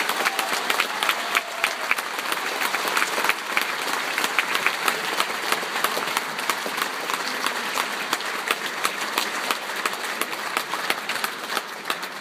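A large audience applauding: dense, steady clapping that thins out at the end.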